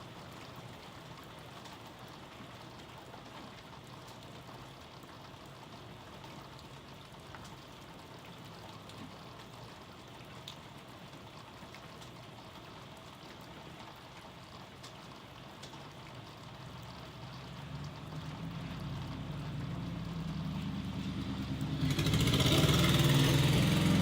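Steady rain falling, then a roll of thunder that builds from a low rumble in the last several seconds to a loud crash near the end.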